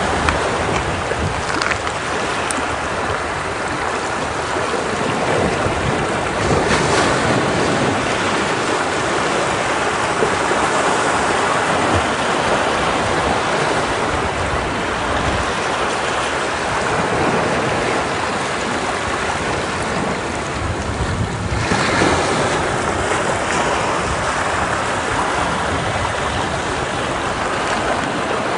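Ocean waves crashing against rocks: a continuous rush of surf, with stronger breaks about seven seconds in and again about twenty-two seconds in.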